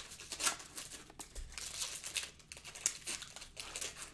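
Wrapping being handled at a table: a run of irregular crinkling and rustling with short sharp crackles.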